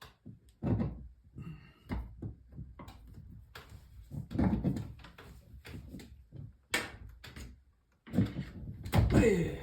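Irregular knocks and clunks of plumbing parts being handled and fitted, with a louder cluster near the end that carries a short falling squeak.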